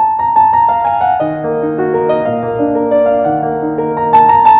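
Piano music: a quick run of notes that builds into held chords, with a louder, brighter chord struck about four seconds in.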